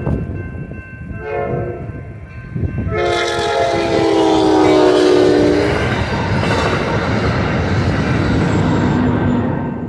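A passenger train's multi-chime locomotive horn gives a short blast about a second in, then a long blast from about three seconds in whose pitch drops as the locomotive reaches the crossing. This is the close of the standard grade-crossing horn signal. The train's cars then pass with a steady rumble of wheels on rails.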